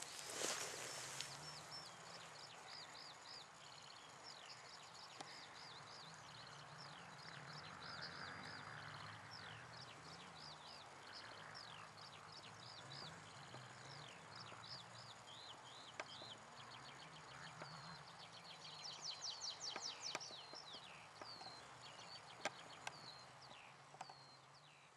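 Songbirds singing faintly: repeated short, downward-sweeping chirps, with a quick run of notes about two-thirds of the way through.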